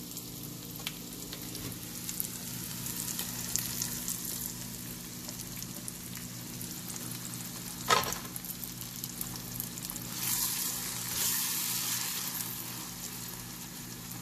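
Onion-tomato masala frying in oil in a nonstick pan, with a steady sizzle. About eight seconds in there is one sharp knock as the eggs go in, and the sizzle grows louder for a few seconds after as raw egg meets the hot oil.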